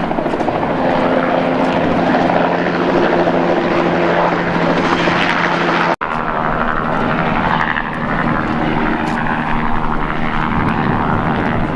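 A turboprop aircraft's engines running with a steady hum, then, about six seconds in, a light helicopter flying overhead with its rotor and turbine.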